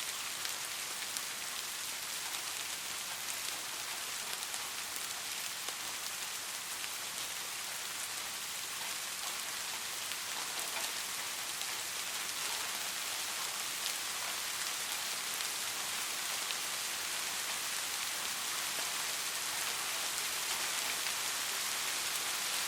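Light, steady rain: an even hiss with scattered drop ticks.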